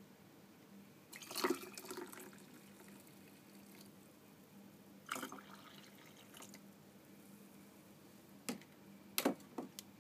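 Liquid poured or splashed into a ceramic mug in two short bursts, followed near the end by a few sharp clicks or knocks.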